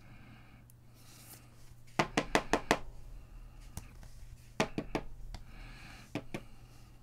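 Baseball cards in plastic sleeves being handled and squared up, giving short runs of sharp clicks and taps: five in quick succession about two seconds in, a few more just before five seconds, and two more near six seconds.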